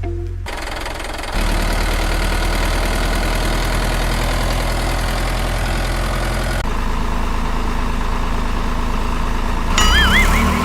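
Engine idling steadily with an even low hum, over several cut-together stretches. A few short high chirps come in near the end.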